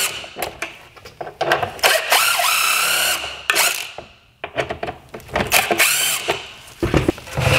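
Ryobi cordless drill with an 8 mm socket running in several short bursts, its motor whine rising in pitch as each burst starts, backing out the headlight adjusting bolts on the plastic headlight housing.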